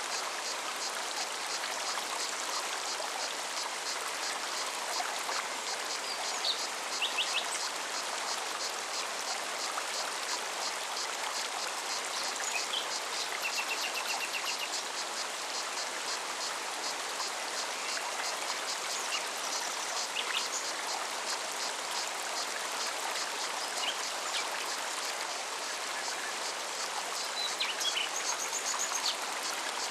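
Forest stream flowing steadily, with a cicada's fast, even pulsing song high above it and short bird chirps now and then.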